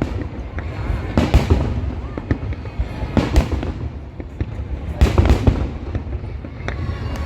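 Fireworks exploding: clusters of loud booms and crackles about every two seconds, near 1, 3 and 5 seconds in, over a continuous low rumble of the show.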